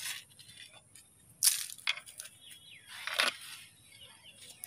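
Dry leaf mulch and small weeds crackling as they are pulled by hand from the soil of a potted plant, in a few short bursts.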